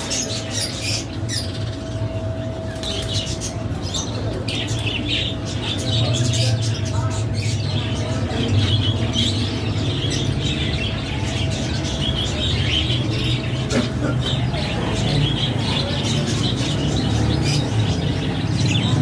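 Many birds chirping and squawking together in quick, overlapping calls, over a steady low hum.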